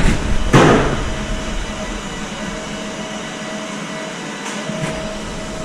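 Steady hum of print-shop machinery, with a mid-pitched tone that drops in and out every second or so. There is a brief loud rustle from the camera being swung round about half a second in.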